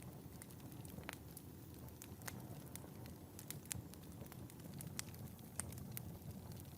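Wood fire in a fireplace burning with a soft low rumble and sharp irregular crackles and pops, a few every second.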